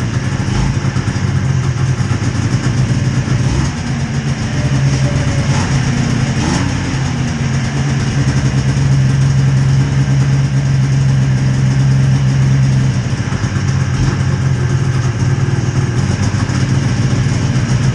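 Two-stroke snowmobile engine idling steadily after a cold start, with a brief rise and fall in pitch about six seconds in.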